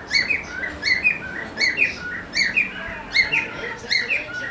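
Male cockatiel singing its courtship call: a short phrase of two rising-and-falling whistled chirps, repeated over and over about every three-quarters of a second.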